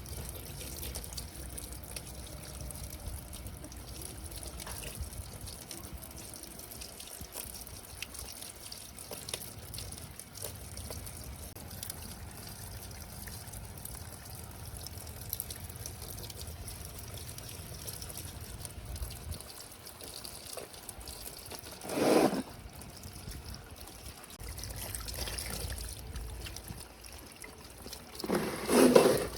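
Water trickling steadily, with two short, louder sounds: one about three-quarters of the way through and one near the end.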